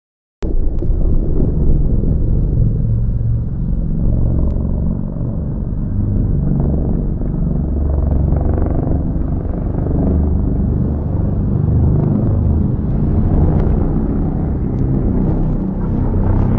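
A loud, steady low rumble that starts abruptly just after the beginning and carries on without a break, with a few faint clicks over it.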